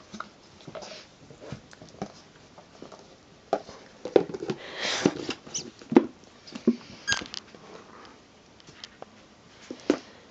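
Jack Russell terrier licking ice cream out of a cardboard carton: irregular wet licks and tongue smacks, busiest around the middle.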